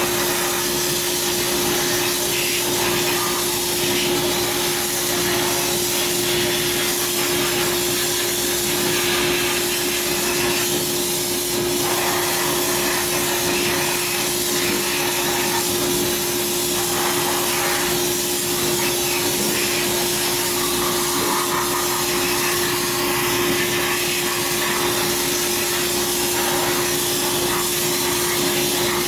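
Blast cabinet nozzle hissing steadily as compressed air and blast media hit an aluminium engine cover. The hiss shifts a little as the nozzle moves over the part, over a steady hum.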